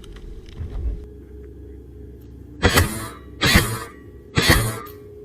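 A person coughing three times, about a second apart, with a quieter lull before the coughs.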